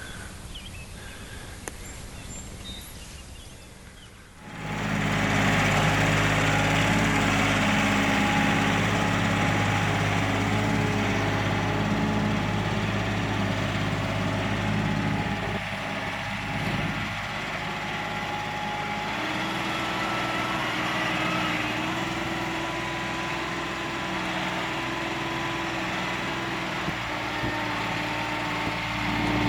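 Compact tractor's diesel engine running steadily, starting about four seconds in after a short quiet stretch; its note shifts up slightly about two-thirds of the way through.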